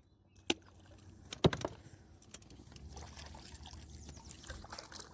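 Water from a small crappie being released: a light knock, then a sharper splash about a second and a half in, followed by soft steady trickling.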